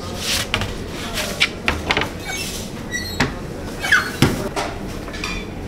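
Clatter of a baker working flatbreads in a deck oven: a series of sharp knocks with a few brief squeaky scrapes from the wooden peel and hands against the oven and counter, over a steady low kitchen hum.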